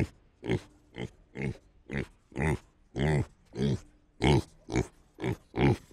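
A pig grunting in a steady string of short grunts, about two a second.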